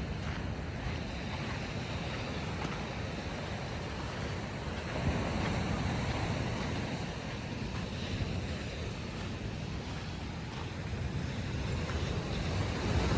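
Ocean surf washing up on the beach, with wind buffeting the microphone. The wash swells about five seconds in and again near the end.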